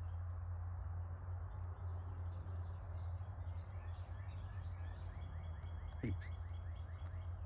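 Small birds chirping over a steady low background hum, with a quick run of short rising chirps about five and a half seconds in.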